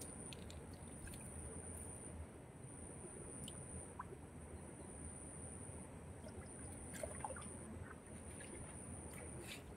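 Faint sloshing and trickling of muddy water as a hand gropes in a water-filled hole for fish, with a few small clicks. A steady high-pitched insect trill runs in long stretches over it.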